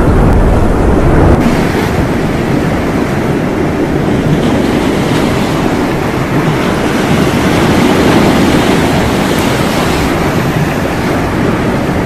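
Loud, steady rushing noise of molten lava pouring into the sea and boiling off steam, with a slight change in the sound about one and a half seconds in.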